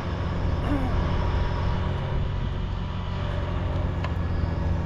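An engine running steadily with a low, even hum, and a short click about four seconds in.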